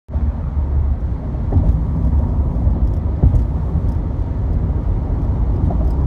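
Road noise inside a moving car on a freeway: a steady low rumble of tyres and engine, with a couple of light knocks about one and a half and three seconds in.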